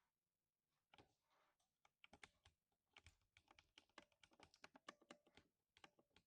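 Faint, rapid typing on a lubricated 60% mechanical keyboard with a deep thock to each keystroke. One keystroke comes about a second in, then a quick run of several keys a second until near the end.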